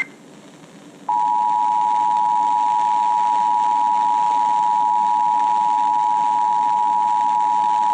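Emergency Alert System two-tone attention signal: a loud, steady pair of pitches held unbroken. It starts about a second in, after a short gap that follows the alert's digital header bursts, and it is the alarm that comes before a broadcast emergency message.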